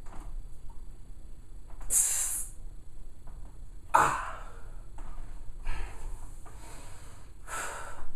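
A man's hard, forceful breaths while straining through bodybuilding poses: about five sharp exhalations a second or two apart, the loudest about four seconds in.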